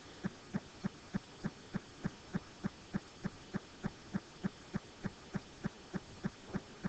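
A faint, very even ticking or low pulsing, about three and a half soft beats a second, steady throughout.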